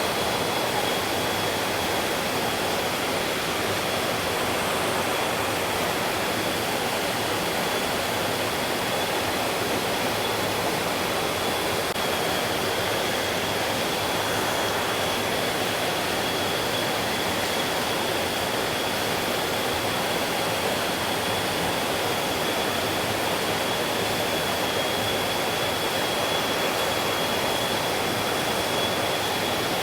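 Mountain stream running steadily over rocks: a continuous rushing of water, with a thin, steady high tone above it.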